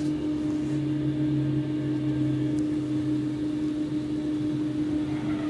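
Steady hum of an Avanti West Coast train, heard from the door vestibule: one even tone over a lower drone.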